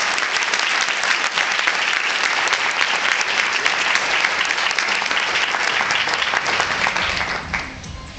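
Audience applauding steadily, a dense patter of many hands clapping that dies away about seven and a half seconds in.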